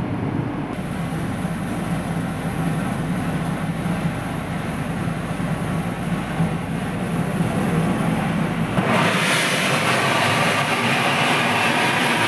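Heavy industrial machinery of a steam boiler and turbine plant running, a loud steady noise with a low drone. About nine seconds in it changes suddenly to a brighter, louder hiss.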